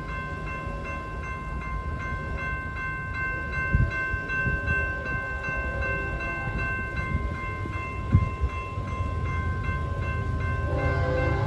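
Railroad crossing warning bell ringing steadily with an even, rapid pulse, over the low rumble of an approaching freight train that grows louder. Near the end the locomotive's horn starts to sound.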